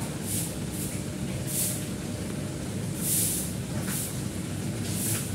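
Water trickling and splashing in a tiered concrete fish pond: a steady low rumble with short hissy splashes coming irregularly, about one a second.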